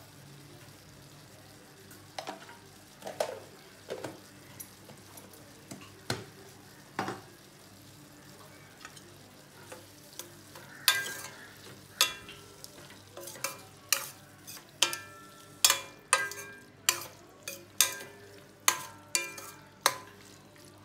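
Steel spoon stirring okra curry in a stainless steel kadai over a faint sizzle, knocking and scraping against the pan. The knocks are sparse at first, then come about once a second from roughly halfway in, each with a short metallic ring.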